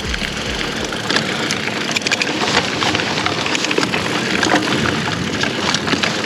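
Mountain bike rolling along a dirt and rock singletrack: a steady rush of tyres on the trail, with many small clicks and rattles from the bike as it goes over rough ground, and wind noise on a helmet or bike-mounted action camera's microphone.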